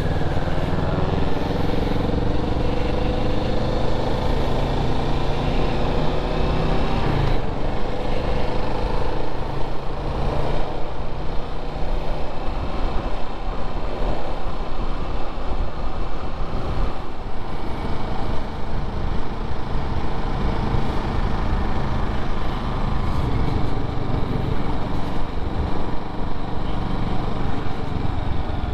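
Motorcycle engine accelerating, its pitch rising for about seven seconds up to a gear change, then running steadily at cruising speed.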